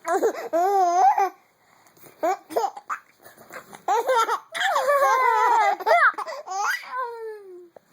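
Baby laughing in repeated high-pitched bursts with short gaps between them, the longest run about halfway through, ending on a long falling note.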